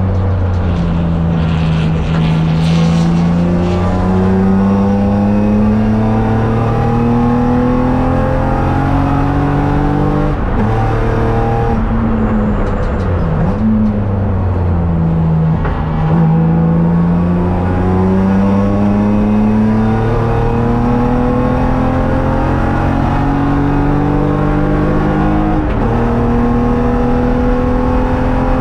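BMW race car's engine under power, heard from inside the cockpit. Its pitch climbs slowly in long pulls, drops sharply about ten seconds in, dips briefly around the middle, then climbs for about ten seconds and drops again near the end.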